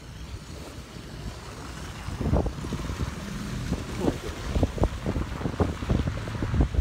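Wind buffeting a phone's microphone outdoors: a low rumble that breaks into irregular gusty thumps from about two seconds in, over a faint steady hum.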